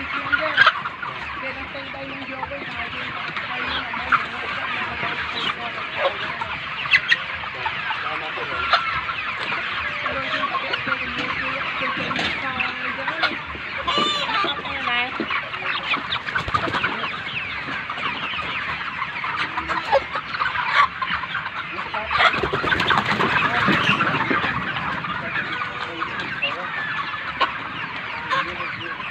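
A large flock of farm chickens calling all at once, a dense, steady chorus of many overlapping chirps and clucks.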